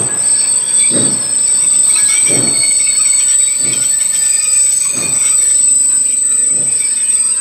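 Steam locomotive Pere Marquette 1225, a 2-8-4 Berkshire, working slowly: its exhaust chuffs come about once every 1.3 seconds over a steady high-pitched squeal.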